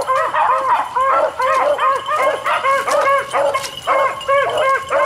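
Beagles giving voice on a rabbit's trail: a quick, continuous string of short, overlapping barks, several a second.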